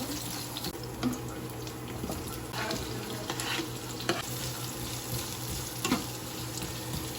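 Garlic frying in oil in a pan, a steady sizzle, while it is stirred, with a few short scrapes and taps of the utensil against the pan.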